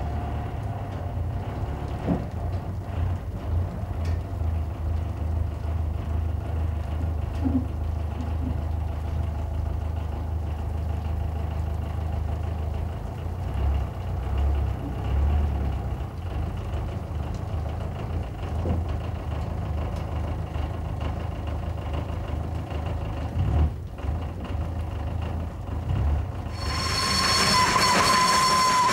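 Achenseebahn rack steam locomotive standing in steam with a steady low rumble and a few knocks. Near the end a loud hiss of steam starts suddenly, with a steady whistle tone over it.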